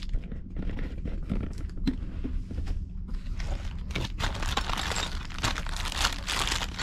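Packaging of GoPro accessories crinkling and rustling as they are handled and unpacked, in irregular bursts that get busier about four seconds in, over a low steady hum.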